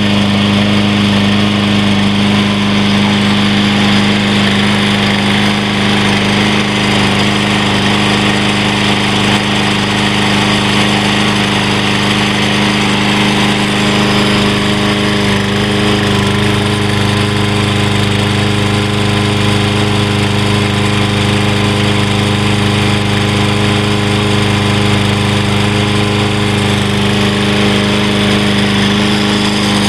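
Walk-behind lawn mower's 7.75 HP overhead-valve Briggs & Stratton single-cylinder engine running steadily at an even speed, just after being started.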